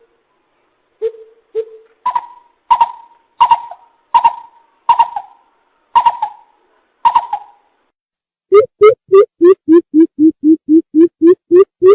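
Coucal hooting, played as a lure call. It begins with two deep hoots, then a slower series of about eight higher, sharper hoots roughly 0.7 s apart. About two-thirds of the way through comes a fast, even run of deep hoots, about three a second.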